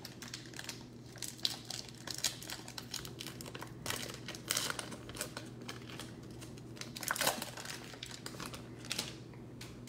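A 2022 Bowman baseball card pack's foil wrapper being torn open and peeled apart by hand: a run of irregular crinkles and crackles, with louder bursts about a second and a half in, around four to five seconds, and around seven seconds.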